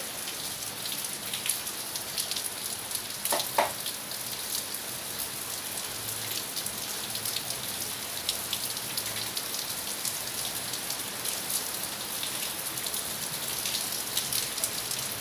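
Steady rain falling, with many close drops ticking. A brief higher-pitched sound comes about three and a half seconds in.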